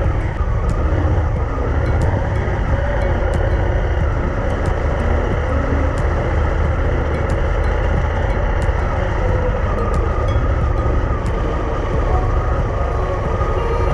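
Honda Africa Twin's parallel-twin engine running steadily as the motorcycle is ridden, a continuous loud rumble with no pauses.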